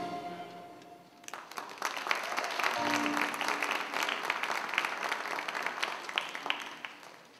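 The song's last held note fades out, then audience applause starts about a second in and carries on, slowly fading.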